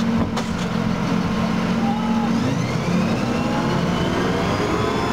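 Armoured personnel carrier's engine and drivetrain running, heard from inside the rear troop compartment. A steady low drone for the first half, then a whine that rises slowly in pitch from about halfway through.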